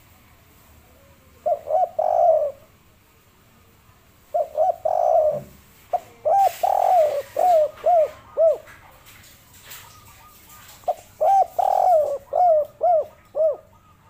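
Spotted dove cooing: four phrases of low, quick coos, each of a few notes, with short pauses between them. Faint chirps of other small birds are heard in the background.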